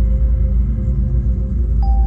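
Ambient background music: a deep, steady drone with long held tones over it, one fading out and a new, higher one coming in near the end.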